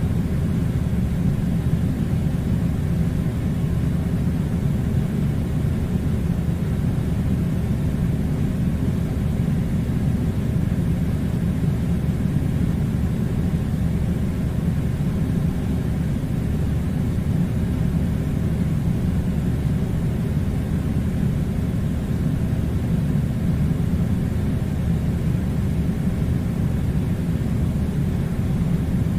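Air conditioner running: a steady low rumble with a faint hiss above it, unchanging throughout.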